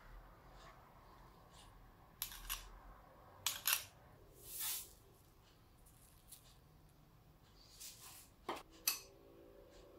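Metal garlic press clicking as it is squeezed, then a knife scraping the pressed garlic off the press into a plastic bowl: a few short sharp clicks and one longer scrape, with two more clicks near the end.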